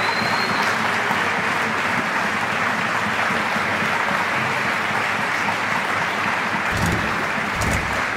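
Audience applauding steadily, with a few low thuds near the end.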